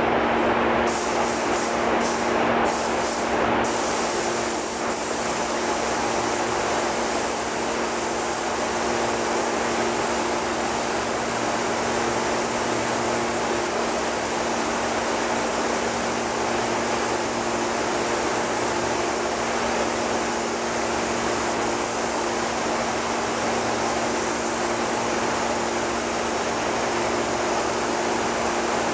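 Steady rushing air with a low, even hum, overlaid by the hiss of a compressed-air paint spray gun spraying an aircraft wing. A few short hisses come in the first few seconds.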